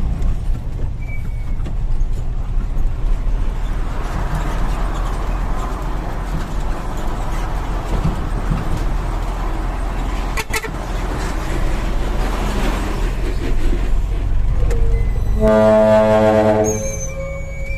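Dump truck's diesel engine running with a steady low rumble. Near the end, a loud trumpet-style air horn blows once for just over a second.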